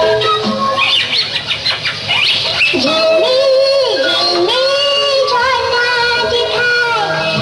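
Bengali children's song: quick rising high instrumental notes for the first couple of seconds, then a high singing voice holding and bending long notes over instrumental backing.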